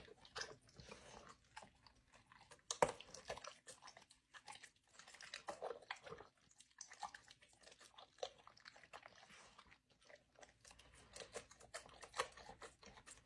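German shepherd eating raw ground rabbit from a bowl: faint, irregular chewing clicks, with one louder click about three seconds in.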